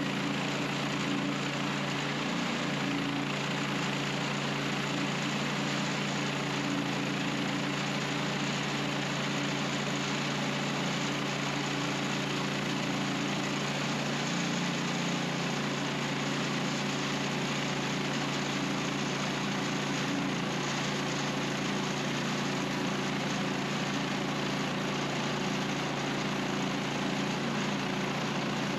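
Woodland Mills HM130 Max sawmill's petrol engine running steadily, with slight dips in pitch about two seconds in and again near the middle.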